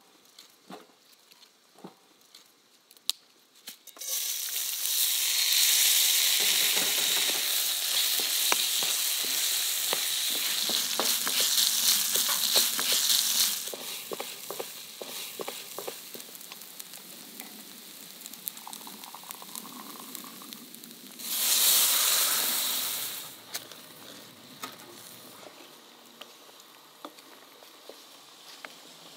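Rice grains frying in hot oil in a steel pan: a loud, hissing sizzle starts about four seconds in and eases off after ten seconds or so into a steadier, quieter frying, with the scrape and tap of a wooden spatula stirring the rice. A second short loud burst of sizzling comes about three-quarters of the way through.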